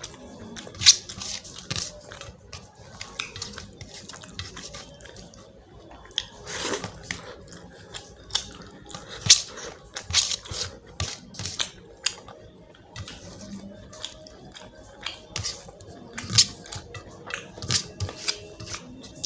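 Close-up eating sounds: wet chewing and smacking of a mouthful of rice and chicken curry, with many short, sharp, irregular clicks.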